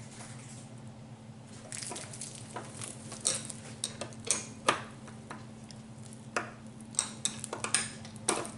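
Phillips screwdriver driving a screw into a flat-screen TV's stand leg by hand: irregular small metallic clicks and crinkling of the plastic wrap around the leg, over a steady low hum.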